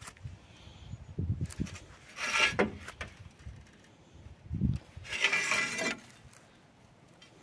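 Short length of steel rail being levered by hand in a steel bending jig to put a curve back into it: metal scraping and creaking under load in two longer pulls, at about two and five seconds in, with a few dull knocks between.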